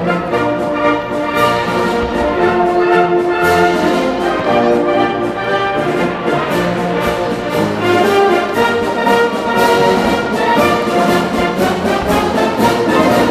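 Orchestral music with prominent brass.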